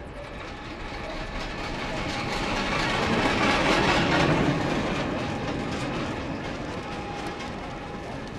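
A small rail trolley rolling along the track past close by: a rumble of wheels on rails that swells to its loudest about four seconds in, then fades as it moves away.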